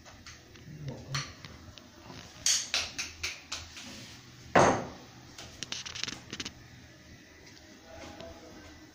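Dishes and cutlery clattering: a quick run of sharp clinks and knocks a couple of seconds in, one louder clatter about halfway through, then a few lighter clicks.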